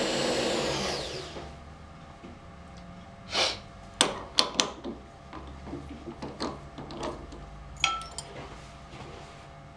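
A whirring machine noise winds down and stops about a second in. Then come scattered sharp metallic clicks and clinks of hand tools being handled and set down, one with a short ring near the end.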